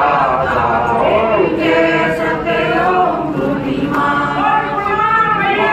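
A group of men and women singing a Hindu aarti together, many voices at once in a steady devotional chant.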